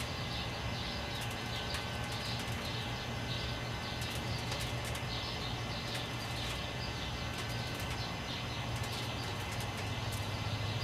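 Dawn birdsong: a bird repeating short high chirps a few times a second, steadily, over a continuous low hum.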